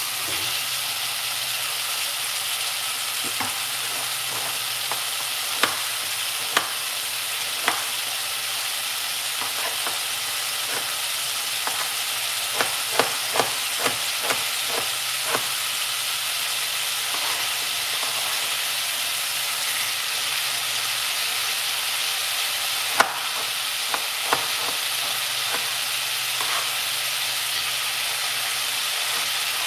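Diced frozen pumpkin and onion sizzling steadily as they fry in an aluminium pot, stirred with a wooden spoon at the start. Scattered sharp pops and taps break through the hiss, a cluster of them near the middle.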